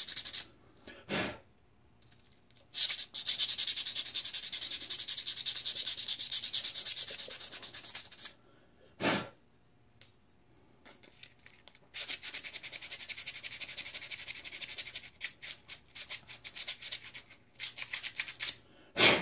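Sandpaper rubbed by hand over the metal shroud of a Graflex flashgun in fast back-and-forth strokes, cleaning it up after the screw holes were drilled and tapped. The sanding comes in two long runs with a pause between, turns choppy near the end, and is broken by a few short knocks of the part on the bench.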